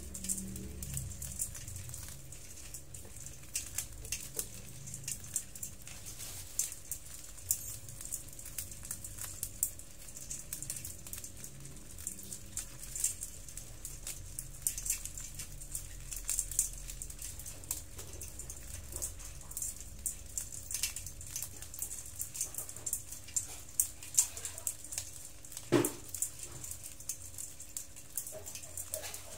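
Hundreds of small hermit crabs crawling over one another in a bowl, their shells clicking against each other and the bowl in a continuous patter of light, irregular ticks, with one sharper tap late on.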